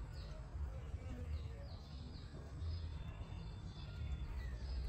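Birds chirping: a run of short, high, downward-sliding chirps, several a second, over a steady low rumble.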